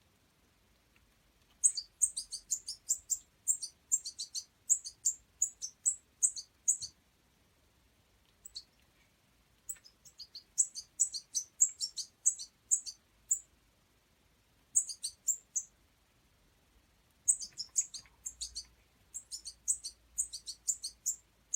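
Juvenile European goldfinch giving rapid, very high chirps in runs of one to four seconds, with short pauses between the runs.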